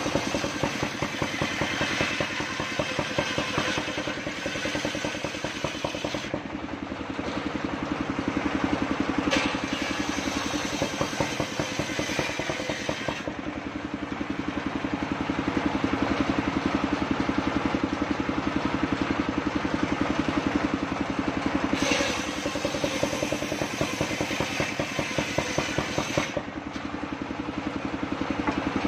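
Engine of a truck-mounted mobile circular sawmill running steadily, driving a large circular saw blade as a log is pushed through it. A higher hiss comes and goes several times over the engine's even hum.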